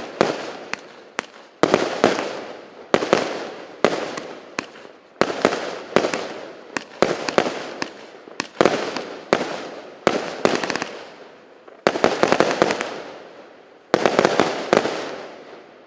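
A 169-shot 0.8-inch consumer fireworks cake firing, about one shot a second, each sharp bang followed by a run of crackling pops that dies away. The last shot fades out near the end.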